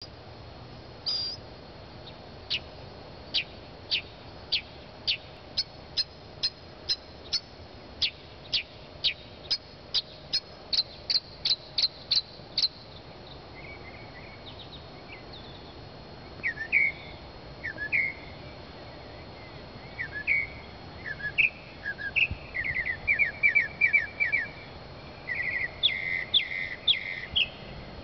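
Northern mockingbird singing through its repertoire. First comes a long series of sharp, high, down-slurred notes that speed up from under two a second to about four a second. About halfway through it switches to varied, lower chattering phrases with quick runs of repeated notes.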